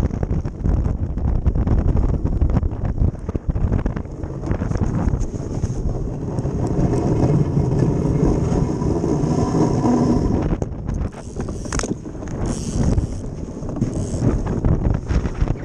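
Wind buffeting the microphone over the steady rumbling rush of an ice boat's runners sliding fast across lake ice while under sail.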